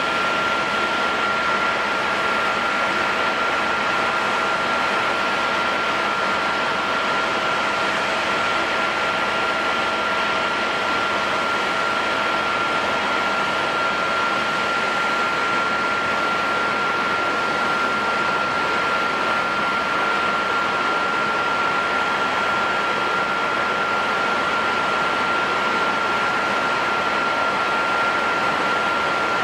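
Jet engines of a Skymark Airlines Boeing 737-800 running at idle: a steady hiss with a constant high whine, and a lower tone that fades out about halfway through.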